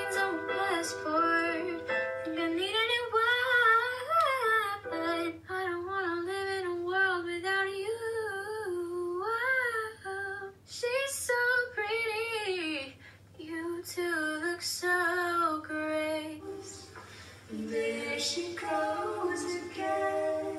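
A young girl singing a slow melody solo, one voice in phrases with a wavering vibrato and short pauses for breath between them.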